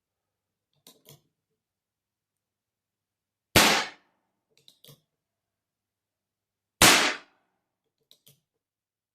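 Two shots from a Pietta 1858 Army cap-and-ball revolver firing light gallery loads (5 grains of Pyrodex P behind a .451 round ball), about three seconds apart, each with a short ringing tail. Faint clicks come before and between the shots.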